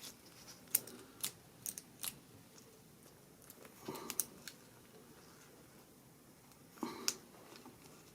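Small sharp metallic clicks at irregular intervals, a few close together in the first two seconds, a pair about four seconds in and another near the end: a key being worked into a stiff door-lock cylinder whose tumblers are sticking out and catching.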